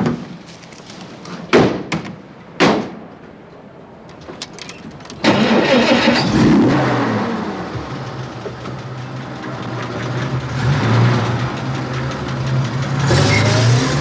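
Two car doors slam shut about a second apart, then a Citroën Traction Avant 15-Six's straight-six engine starts suddenly about five seconds in and runs steadily, revving up near the end.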